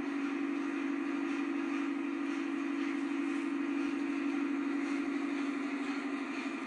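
A steady low hum with hiss over it, unchanging throughout.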